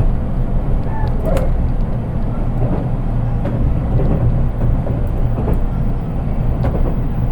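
Interior running sound of a JR East 183 series train, heard from the unpowered KuHa 183 driving trailer car: a steady low rumble of wheels on track with faint clicks scattered through it and no traction-motor sound.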